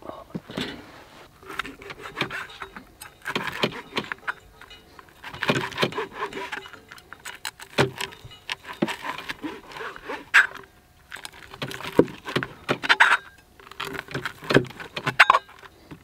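Irregular clinking and clattering of small hard objects being handled, in short uneven bursts with brief pauses between them.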